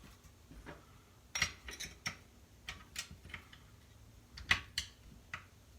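Scattered sharp metal clicks and taps of a hand tool working on a chainsaw bolt, irregularly spaced, the loudest about a second and a half in and again near the end.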